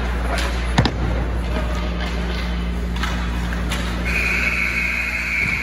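An ice rink's steady low hum and ambient noise with a sharp knock about a second in, then a steady electronic buzzer starting about four seconds in and holding one tone, as at the end of a period or a stoppage in a hockey game.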